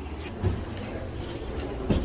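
Low, steady rumble of a handheld camera being carried while walking, with two soft thumps of handling or footfall.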